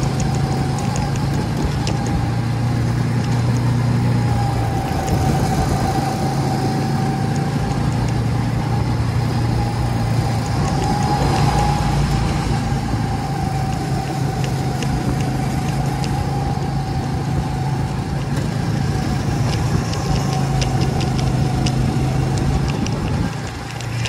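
Go-kart's small engine running at speed right under the driver, its pitch rising and falling slightly through the corners, over a steady rush of road noise.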